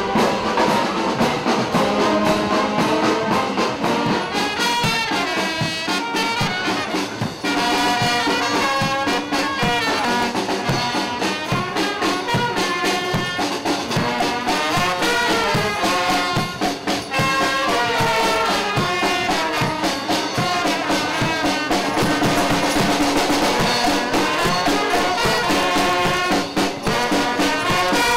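Marching brass band playing a lively tune with drum beats running under it.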